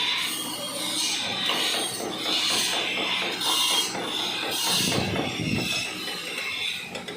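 Rasping strokes of a hand tool scrubbing steel, coming about once a second, as when a weld is wire-brushed clean between passes.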